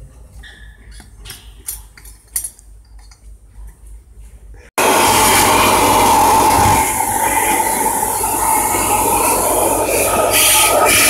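Light metal clicks and taps of a wrench on the dual-clutch gearbox's input shaft. About five seconds in, a loud, steady rush of air starts suddenly, most likely a compressed-air blow gun cleaning out the gearbox's clutch housing.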